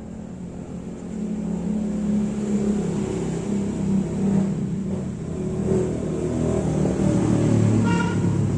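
A motor vehicle engine running off-screen, growing louder over the first few seconds and staying loud. About eight seconds in, a high pitched sound with several overtones begins.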